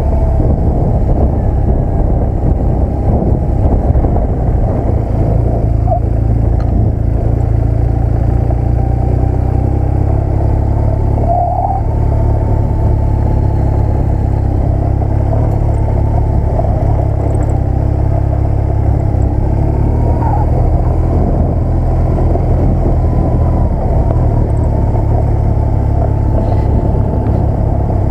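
Motorcycle engine running while the bike rides along, its pitch drifting slightly with the throttle over a strong, steady low rumble.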